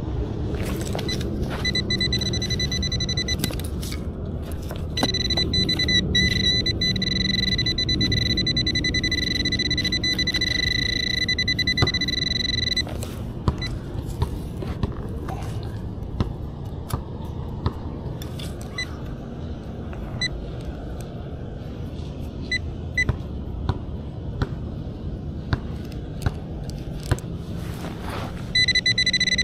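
A metal detector's steady high electronic tone, signalling metal under the coil: it sounds for about two seconds, then for about eight, gives a few short blips later on, and comes back near the end. Scattered scrapes and knocks and a low rumble sound underneath.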